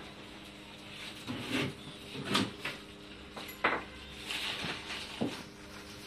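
Scattered knocks and clatters of kitchen handling, about five over a few seconds, over a steady low hum.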